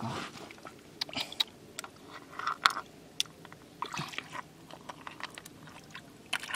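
Freshwater clam shells clicking and clacking against each other as they are picked up and handled in shallow river water, mixed with small swishes and splashes of water. The clicks are sharp and irregular, the loudest about two and a half seconds in.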